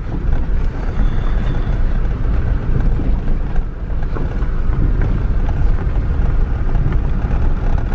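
Car driving on a dirt road, heard from inside the cabin: a steady low rumble of tyres on the unpaved surface and the engine.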